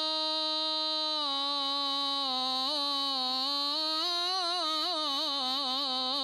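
A solo male voice singing an Arabic religious praise song unaccompanied. He holds one long steady note, then about a second in dips slightly and winds it through quickening melismatic turns.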